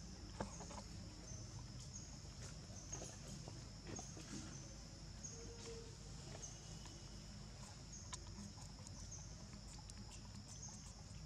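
Faint outdoor ambience: a steady high-pitched insect drone with a short chirp repeating about once a second, and a few soft clicks.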